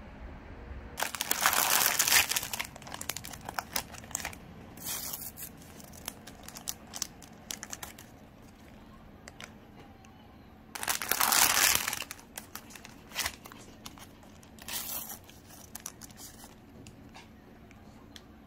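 Plastic Pokémon bread wrappers crinkling and tearing open in the hands, in two loud bouts, one about a second in and one past the middle, with lighter rustles of packaging between.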